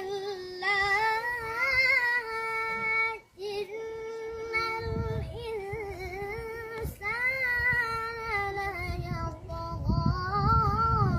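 A child singing long, held notes that waver in pitch, without clear words, with a short break about three seconds in.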